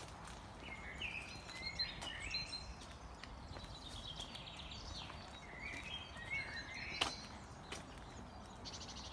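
Songbirds singing in short, gliding, warbling phrases and trills over a steady outdoor hiss, with a few sharp clicks, the loudest about seven seconds in.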